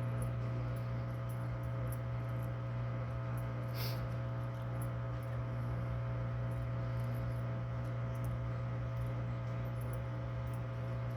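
LG Inverter Turbo Drum washing machine's drain pump running with a steady low hum, pumping water out. The water-level pressure switch is faulty and never reports the drum as empty, so the machine keeps draining instead of spinning.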